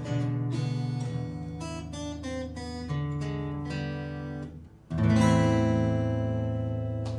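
Steel-string acoustic guitar played solo: picked notes, a brief pause about four and a half seconds in, then a strong strummed chord that is left ringing to close the song.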